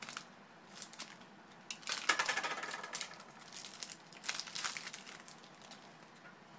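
Baseball card pack wrapper crinkling and tearing as it is pulled open, in several bursts, the loudest about two seconds in.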